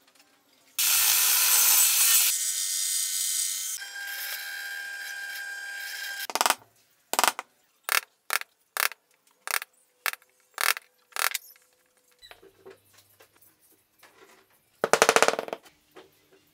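A power tool cuts into an MDF disc for about five seconds. It is followed by about nine sharp hammer blows on a chisel squaring out the hole, each about half a second apart. A short rattling burst comes near the end.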